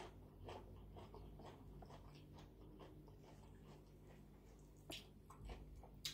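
Faint chewing: soft wet mouth clicks a few times a second, with a couple of sharper clicks near the end. A steady low hum runs underneath.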